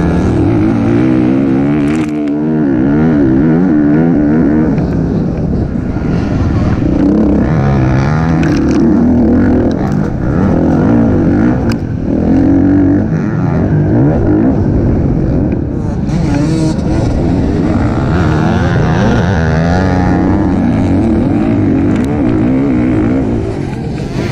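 Motocross bike engine ridden hard on the track, revving up and falling back again and again as the throttle opens and closes.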